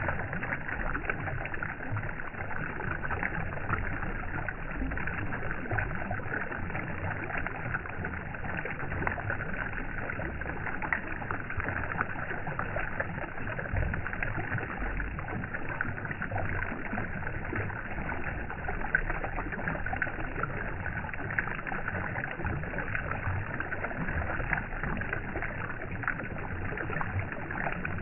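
Steady, unbroken water noise with an uneven low rumble underneath.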